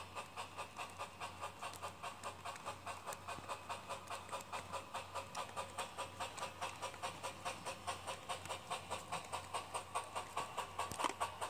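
Toy electric train rolling past on plastic track, its cars' wheels clicking in an even rhythm of about four clicks a second over a steady hum.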